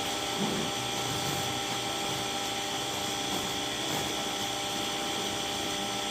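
Electric pressure washer running steadily with a constant high motor whine, water spraying from a rotating surface cleaner attachment onto concrete.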